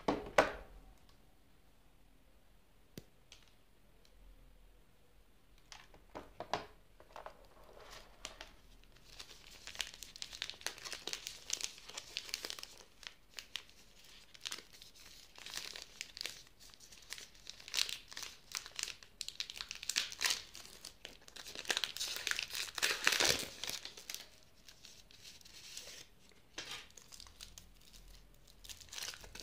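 Chocolate-bar wrappers crinkling and tearing as a Cadbury Dairy Milk Silk bar is unwrapped by hand. A sharp knock at the very start and a few light clicks come first; the crinkling starts about a third of the way in, runs on almost continuously, and is loudest about three quarters of the way through.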